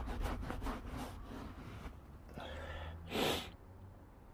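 A cloth rubbing back and forth on a leather car seat in quick strokes, wiping leather cleaner off, fading out after the first second or so. About three seconds in there is a short, sharp breath.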